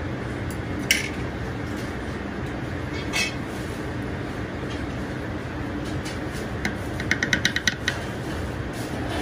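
Chopsticks setting fried prawn rolls down on a slate plate: a sharp click about a second in and a short clatter about three seconds in. Near the end a metal spoon taps rapidly against the slate, about eight quick clicks, as mayonnaise sauce is spooned out. A steady low rumble runs underneath.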